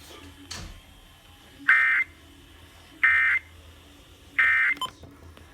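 Emergency Alert System end-of-message tones: three short bursts of digital data warble, a little over a second apart, marking the end of the test message.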